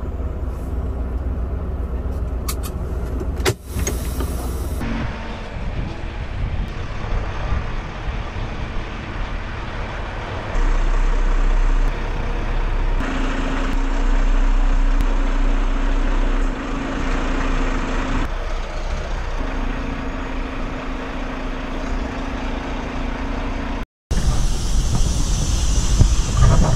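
Semi truck on the move: steady engine and road noise that changes abruptly several times, with a sharp click about three and a half seconds in and a brief dropout near the end.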